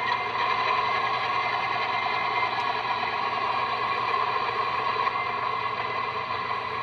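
A sound decoder's recorded ALCo 244 diesel prime mover idling through a model locomotive's small speakers: a steady buzzy engine hum that slowly gets quieter.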